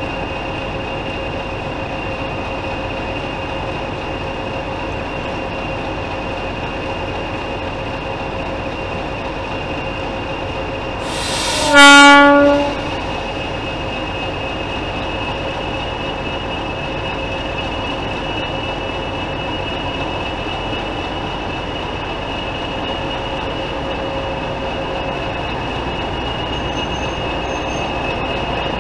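Steam locomotive whistle giving one short blast about eleven seconds in: a rush of steam, then a single steady note lasting about a second, much louder than everything else. Behind it is a steady background with a few continuous high tones.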